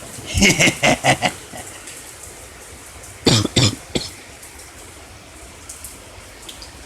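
A man's voice in short, broken bursts: a quick run of four or five in the first second or so, then two or three more about three seconds in, over a steady hiss of rain.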